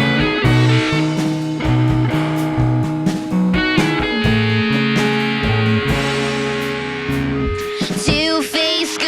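A rock band playing live: electric guitar over a bass line and drums, with no vocals. Near the end the bass line stops and a singer's voice comes in.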